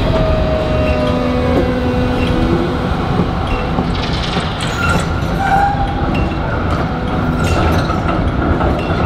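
Melbourne A-class tram running slowly through a track junction and onto a curve: a steady rumble with clicks as the wheels cross the points in the second half, and a few short steel-wheel squeals, one sliding down in pitch at the start.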